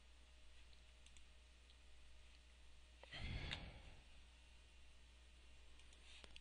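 Near silence over a steady low hum, with a short breath into the microphone about three seconds in.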